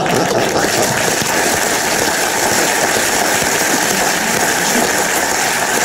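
Studio audience applauding, a dense steady clapping at an even level.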